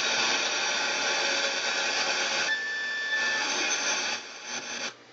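Circle of Sound clock radio's speaker hissing with static from poor reception. Partway through, the static changes and a thin whistling tone sounds for under a second, then the sound cuts off suddenly near the end.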